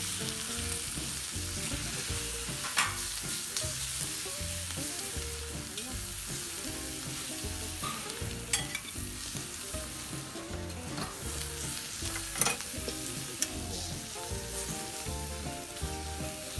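Meat sizzling on the steel sear plate around a wood-burning fire pit, with a few sharp clicks of metal tongs and a spatula against the plate.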